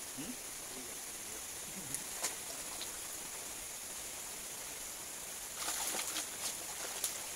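Steady high-pitched chirring of night insects, with a few sharp clicks about two seconds in and a short flurry of noise and clicks near the end.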